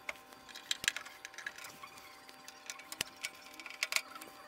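Screwdriver working screws out of a microwave's sheet-metal housing: irregular small clicks and light metal taps.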